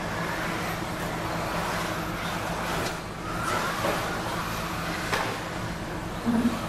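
Electric RC stadium trucks with 13.5-turn brushless motors racing on an indoor dirt track: motor whine and tyres on the dirt, with a couple of sharp clacks from trucks landing or hitting the track.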